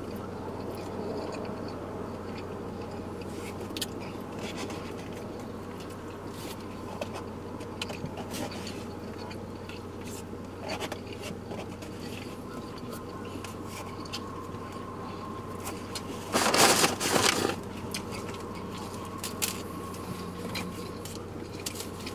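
Takeout food being handled and eaten: scattered scrapes, crinkles and chewing sounds over a steady low hum, with one louder rustle of packaging lasting about a second, some sixteen seconds in.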